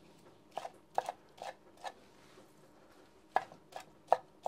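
Chef's knife chopping grilled corn kernels on a wooden cutting board: a run of short knocks of the blade on the board, a pause of about a second and a half, then another run near the end.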